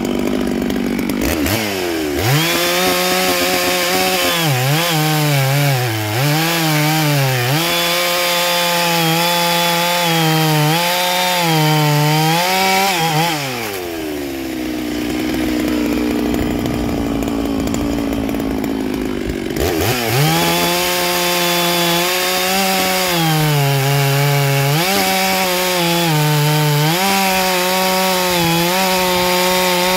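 Large two-stroke chainsaw revving to full throttle and cutting into a big log, its pitch dipping and recovering as the chain is pressed into the wood. About 13 seconds in it drops back to idle for several seconds, then revs up and cuts again.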